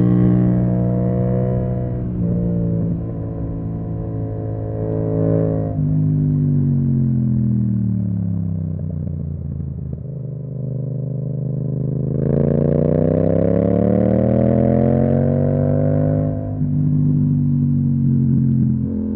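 Yamaha MT-07's parallel-twin engine through an Akrapovic exhaust, ridden on the road. The engine note falls as the bike slows, with revs jumping up on the downshifts, and runs low about halfway through. It then rises under acceleration, with upshifts in the last few seconds.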